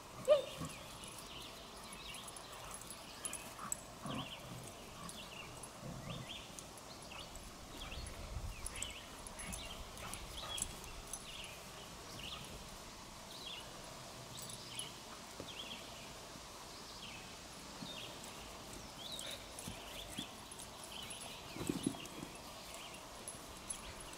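Quiet backyard ambience with many short, high chirps scattered throughout and a brief louder sound about half a second in.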